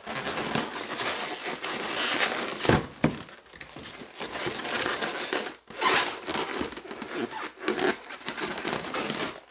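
Long latex modelling balloons rubbing and squeaking against each other and the hands as they are twisted and wrapped, in an irregular crinkling run with a louder squeak or rub just under a third of the way in.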